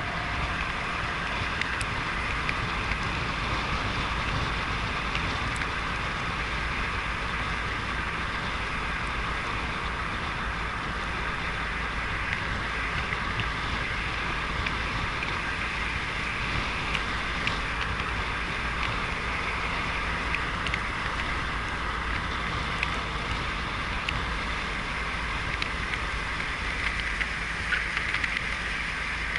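A car driving along a country lane: steady engine and tyre noise that stays even throughout.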